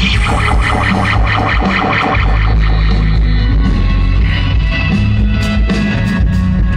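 Live rock band playing loud amplified music with a steady beat and heavy bass.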